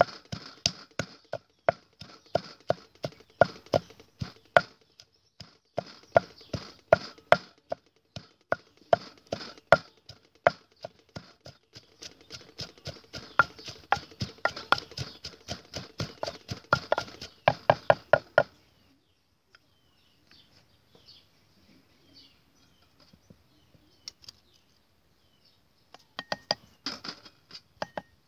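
Wooden pestle pounding garlic and chilies in a wooden mortar: a steady run of knocks, a few strokes a second, that stops about two-thirds of the way through. A few lighter knocks follow near the end.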